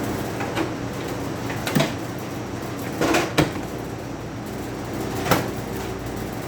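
A light bulb being handled and a microwave oven door worked: four short knocks and clunks over a steady low hum.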